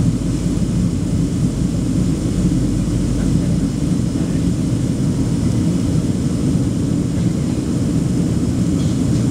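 Steady low rumble of a Boeing 737-800 in flight, heard inside the passenger cabin over the wing: the CFM56-7B turbofan engines and the rush of air past the fuselage.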